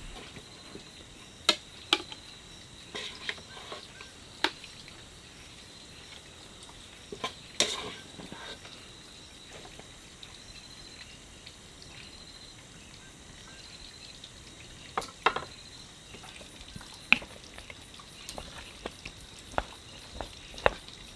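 Chopsticks clicking and tapping against ceramic bowls and a plate during a meal. The taps are scattered, a few seconds apart, over a faint steady hiss.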